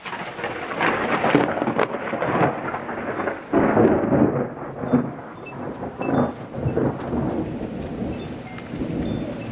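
Thunder: a clap that breaks in suddenly, then rolls on in several loud surges of rumble before easing off slightly near the end.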